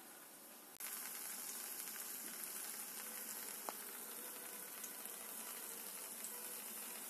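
Papdi, thin rounds of sesame-topped maida dough, sizzling steadily as they deep-fry in hot oil in an iron kadhai. The sizzle starts abruptly about a second in, with a faint click near the middle.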